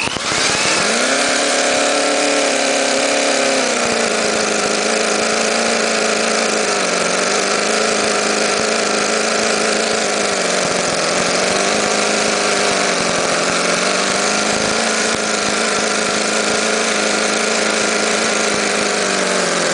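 1/6-scale model Duesenberg straight-eight engine with four valves per cylinder, running on propane through a model-aircraft carburetor: a fast, steady, high-pitched buzz. Its speed drops a little about 4 s in, wavers slightly, and the running stops abruptly near the end.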